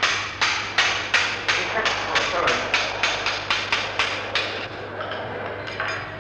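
A rapid, even series of sharp knocks like hammer blows, about three a second, growing fainter after about four and a half seconds, over a low steady hum.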